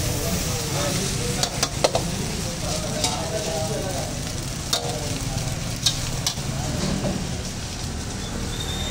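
Rice sizzling in a large wok while a metal ladle stirs and scrapes it, striking the pan with a handful of sharp clinks.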